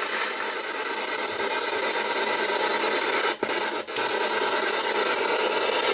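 Spirit box radios sweeping through stations: a continuous hiss of radio static that briefly cuts out twice about three and a half seconds in.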